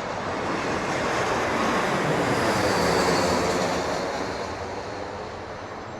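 Airliner's engines passing close by, the rushing noise swelling to a peak about halfway through and then fading away.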